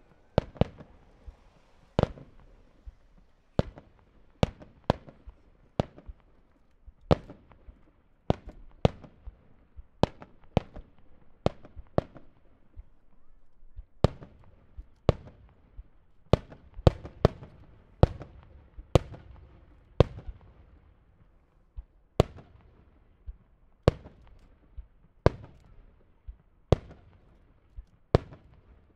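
Star mine fireworks: aerial shells bursting in a rapid, irregular series of sharp bangs, more than one a second, each followed by a short echo.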